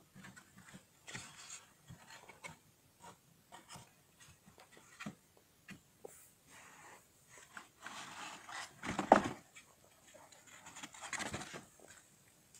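Cardboard egg-crate flats rustling and scraping as they are handled and lifted in a plastic breeding bin, with scattered light clicks and knocks. The loudest rustles come about a second in, eight to nine seconds in, and near the end.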